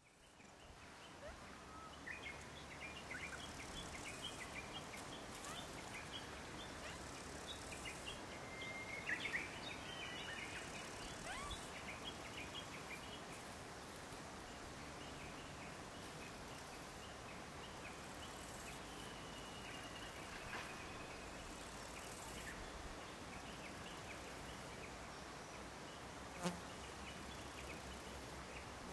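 Outdoor meadow ambience fading in: a faint steady hiss with many short high chirps, busiest in the first half, and a single sharp click near the end.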